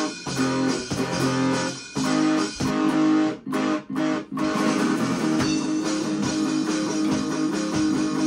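Multitrack-recorded rock cover led by layered guitars. About three and a half seconds in, the band stops short three times in quick succession, then carries on.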